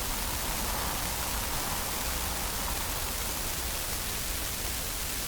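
Steady, even background hiss with a faint low hum underneath, unchanging throughout.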